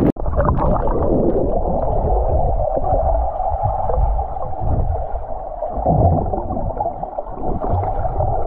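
Loud, muffled rushing and gurgling of water, as heard by a camera held under water; it starts abruptly just after the start.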